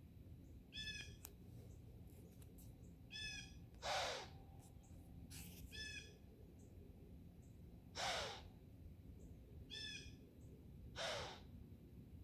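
Deer doe snorting: three loud, breathy blows a few seconds apart, with short higher-pitched wheezing calls in between.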